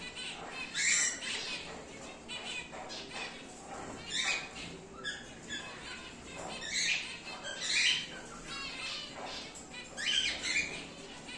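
Flock of cockatiels calling: a continual chatter of chirps and squawks, with about five louder, harsher screeches at intervals.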